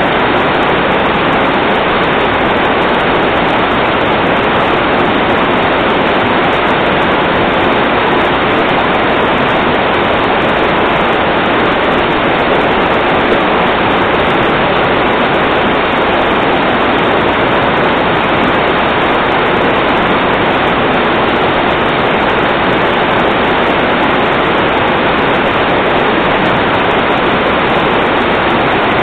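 Steady, loud rush of water with no breaks or changes, typical of floodwater running.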